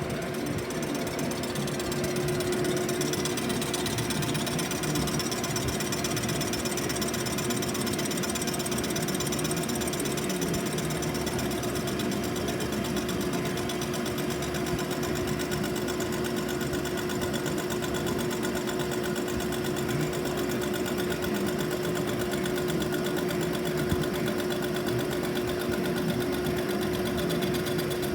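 DeVlieg machine tool cutting a cast-iron exhaust manifold: a steady hum with a fast, even rattle of the cutter that holds constant throughout.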